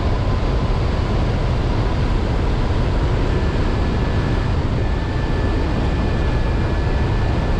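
Steady rush of airflow over the microphone of a hang glider in flight. Faint steady high whistling tones sit above it, a second one joining about three seconds in.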